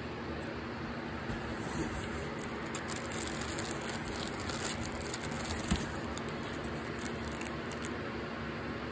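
Rustling and crackling of plastic-wrapped items and packaging being handled in a cardboard box, scattered small crackles over a steady background hiss, with one light knock about two-thirds of the way through.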